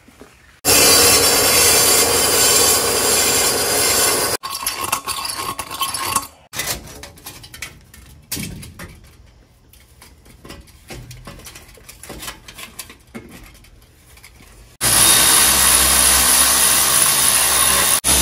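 Power saw cutting in two loud runs, the first for about three seconds at the start and the second from near the end, with quieter scraping and clattering of shop work between them.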